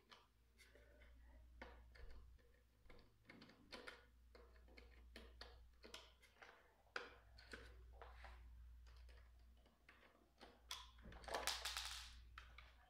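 Faint scattered clicks and taps of a screwdriver and small screws against the plastic housing of a Cuisinart DCG-20N being taken apart, with a louder scraping rustle near the end as the housing is handled.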